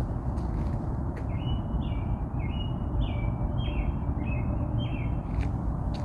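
A songbird sings a run of about eight quick two-part notes, roughly two a second, over a steady low background rumble.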